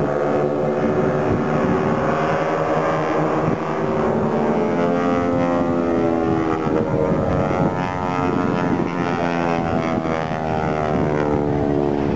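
Engines of several propeller-driven aerobatic planes droning overhead in formation, their pitch slowly rising and falling as the planes move through the manoeuvre.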